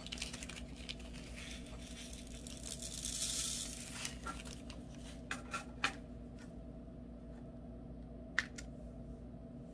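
A small plastic bag of diamond-painting drills being handled over a plastic drill tray: a rustle about three seconds in, then a few light clicks.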